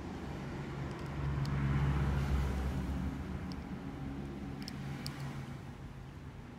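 Low engine rumble of a vehicle running in the background, swelling about two seconds in and then slowly fading, with a few faint clicks.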